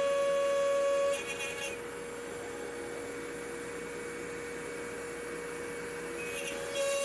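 CNC router spindle running with a steady high whine. About a second in, the louder cutting sound into the walnut drops away, leaving the spindle running on its own. The cutting sound comes back near the end.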